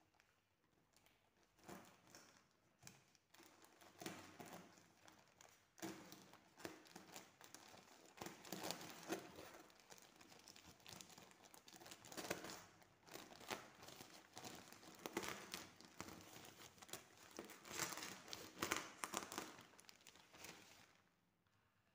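Plastic courier mailer bag crinkling and tearing as it is gripped, pulled and cut open, in irregular rustles and crackly rips.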